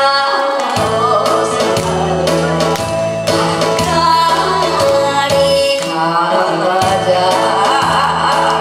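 Woman singing into a microphone over amplified backing music with a steady bass line.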